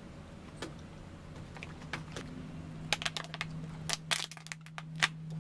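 Thin plastic water bottle being handled and drunk from, its plastic crackling in a series of sharp clicks from about halfway in. A low steady hum grows stronger under it near the end.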